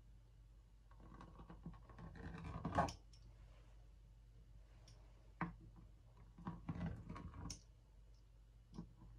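Pizza wheel cutter rolling and scraping through sesame dough against a stone countertop in a few faint scratchy strokes. The longest stroke swells over about two seconds, a sharp click comes about five seconds in, and a cluster of shorter strokes follows.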